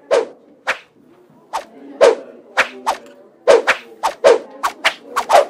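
Repeated short, sharp dog-like barks, about fifteen of them, coming faster and faster.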